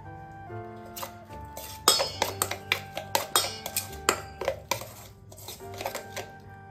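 Metal spoon clinking and scraping against a stainless steel bowl while stirring dry spice powders into a paste, in a quick run of sharp clinks starting about two seconds in and a few more near the end. Background music plays throughout.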